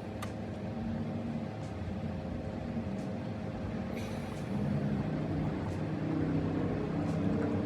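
A vehicle engine running steadily with a low hum, growing a little louder about halfway through.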